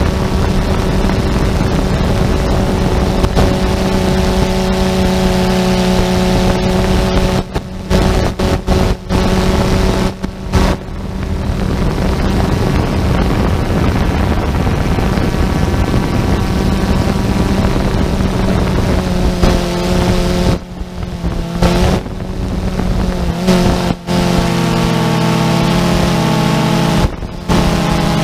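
Quadcopter drone's motors and propellers running with a steady whine, heard from the drone's own camera. In the last third the motor pitch shifts up and down, and the sound cuts out briefly several times.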